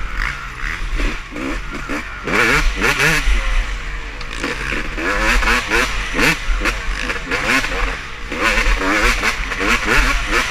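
Several motocross bikes racing past, their engines revving up and down repeatedly as they pass.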